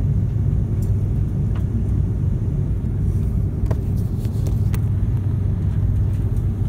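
Airbus A330-300 taxiing, heard from inside the cabin: a steady low rumble of idling engines and wheels rolling on the pavement, with a few faint clicks and rattles about midway.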